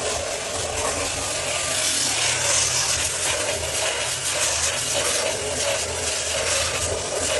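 A floor sanding machine running steadily on a wooden parquet floor: a steady motor hum under the even rasp of the abrasive on the wood.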